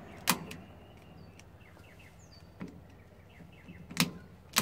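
Sharp clicks of a Nixon RCBO's toggle being switched by hand: one strong click, then two more near the end with fainter ticks between. The device's test function has blown and it is dead. Birds chirp faintly in the background.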